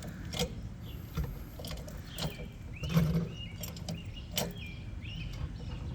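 Scattered sharp clicks and knocks of hand tools working at a car wheel during a tire change, about five spread over a few seconds.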